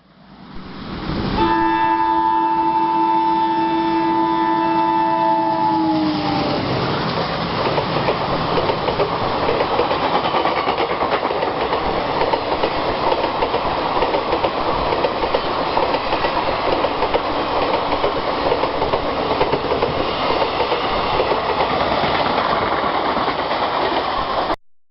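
WDG3A diesel locomotive's horn sounding one long blast of several tones together, the pitch dropping as the engine passes. Then the express's coaches run past with a steady roar and rattle of wheels over the rail joints, which cuts off abruptly near the end.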